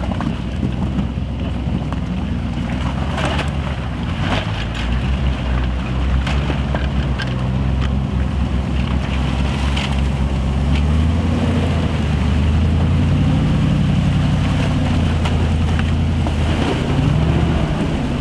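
Off-road 4x4 engine running under load, its revs rising and falling, with a number of sharp knocks and cracks along the way.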